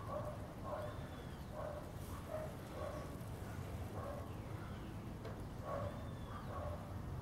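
Short animal calls repeating roughly twice a second, with a short gap about two-thirds of the way in, over a steady low rumble.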